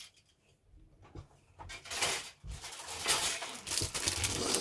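Thin clear plastic bag crinkling and rustling as it is handled, starting about two seconds in after a near-quiet moment with a single click.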